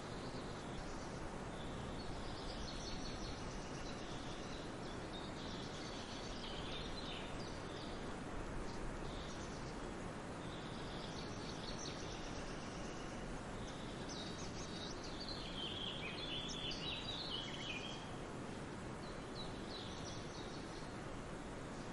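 Songbirds chirping in scattered clusters of short, high notes, a few seconds apart, over a steady background hiss.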